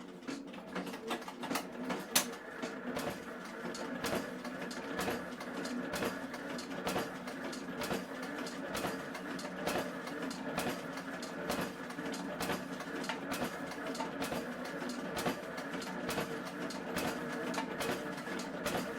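Printing machinery running steadily: a mechanical hum with a regular clack of about two strokes a second, with one sharper click about two seconds in.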